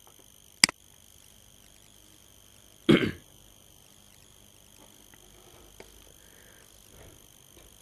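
A person's single short cough about three seconds in, with a sharp click shortly before it.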